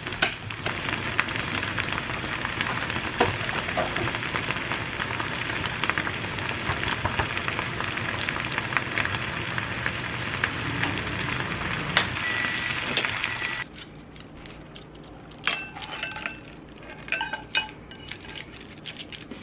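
A frying pan of clams and tofu noodles in broth, bubbling and sizzling vigorously over high heat, with small pops and crackles. About 14 seconds in the sizzle cuts off, and scattered clinks and taps follow as the clams and noodles are tipped from the pan into a ceramic bowl.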